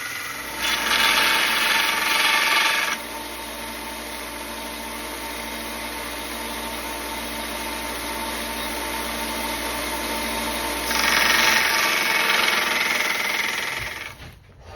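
Belt grinder running steadily, with two stretches of louder grinding as the knife handle and its pins are pressed to the belt to grind them down: about a second in, and again near the end. The noise drops away just before the end.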